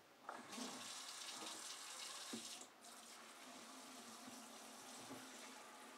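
Kitchen faucet running into the sink while dishes are washed. The water's hiss comes on about half a second in and softens a little before three seconds in, with a couple of faint knocks of dishware.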